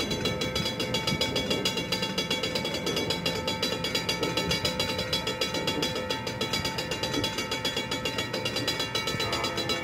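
Railroad grade-crossing warning bell ringing in rapid, evenly spaced dings.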